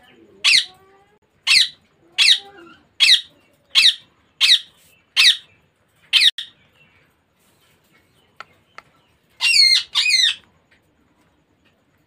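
Baby Indian ringneck parakeet calling: a run of about eight sharp, harsh squawks, each falling in pitch, roughly one every three quarters of a second, then a pause and a longer wavering two-part call near the end.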